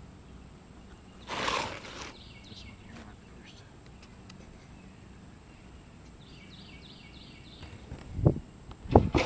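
Work sounds on a shed roof: a short rush of noise about a second in, then two heavy dull thumps near the end. A bird calls in between with quick runs of high, stepped chirps, twice.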